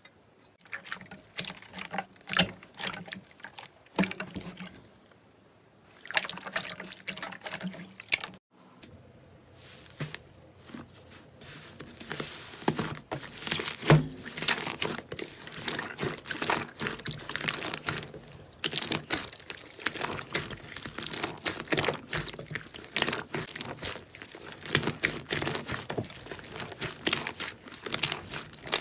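Slime being squeezed and pressed by hand: dense, wet clicking and popping, with a short quieter break about four seconds in and a sudden cut about eight seconds in, then steady crackling.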